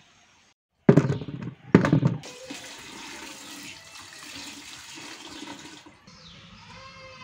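Water from an outdoor tap running into a plastic bucket: two loud splashing gushes about a second in, then a steady rush of water until near the end.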